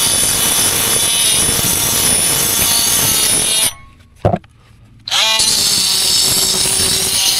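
DeWalt brushless oscillating multi-tool buzzing as its blade grinds excess mortar off the joints of a cement-block foundation wall. The tool stops about halfway through, and a single knock sounds in the pause. Then it starts again and winds back up to speed.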